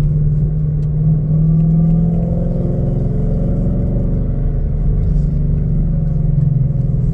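2017 Ford Mustang GT's 5.0-litre V8 running at a steady cruise with road noise, a constant low drone. The engine note wavers slightly in pitch around the middle.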